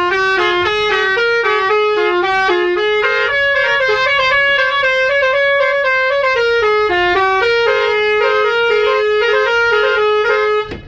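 Basuri musical horn of an Indonesian bus playing a tune: a quick run of stepped notes, a few per second, with a stretch of held higher notes in the middle. It stops abruptly just before the end.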